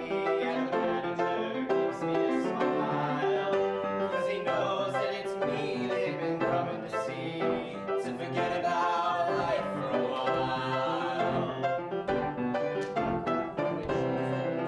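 Male a cappella group singing in harmony, several voices holding and moving between chords.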